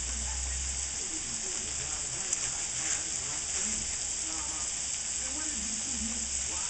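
Prosciutto-wrapped tuna and shrimp frying in butter in a skillet on high heat: a steady sizzle.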